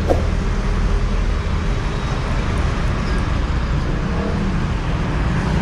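Motorcycle engines running at idle, a steady low hum, with passing road traffic.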